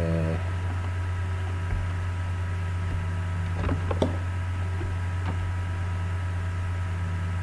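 Steady low electrical hum with hiss and a few faint steady higher tones, the background noise of the recording microphone; a couple of faint clicks about four seconds in.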